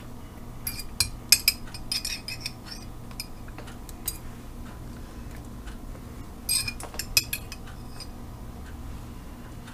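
Light clinks and taps from handling disposable aluminium foil pans, in clusters: a run of them about a second in, a couple around four seconds, and another run near seven seconds, over a low steady hum.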